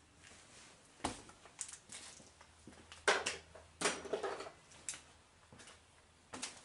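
Irregular knocks, clicks and scrapes of hands handling hard parts, a few separate strikes with the loudest cluster a little past the middle.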